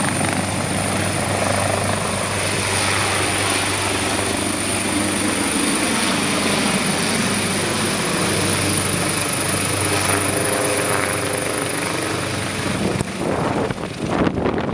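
AgustaWestland AW139 twin-turboshaft helicopter lifting off and climbing away overhead: a loud, steady rush of rotor and engine noise with a high, steady turbine whine. Near the end, gusts of wind buffet the microphone in uneven thumps.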